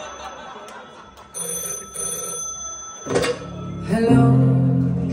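Telephone ringing in two long rings, stopping about three seconds in as the receiver is picked up, followed by low sustained tones.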